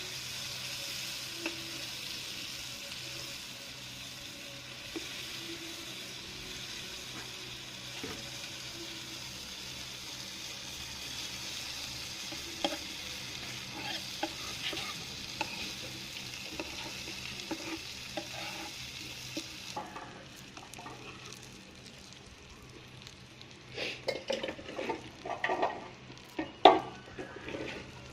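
Masala-coated fish frying in hot oil with a steady sizzle while a spatula scrapes and knocks against the pan. The sizzle thins about two-thirds of the way through, and the scraping and knocking get louder near the end.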